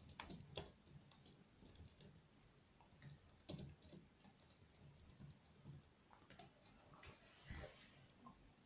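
Near silence broken by faint, irregular clicks and taps of someone typing a message. A brief rustle of movement comes near the end.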